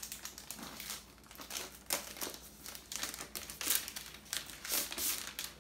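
Thin plastic protective wrap crinkling and rustling in irregular bursts as it is pulled off a new MacBook Pro laptop by hand.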